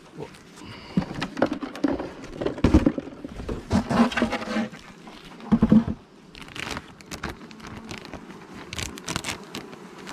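Wooden knocks and thumps as a beehive's roof is lifted off and handled. In the second half, a clear plastic foil sheet lying over the frames crinkles as it is peeled back.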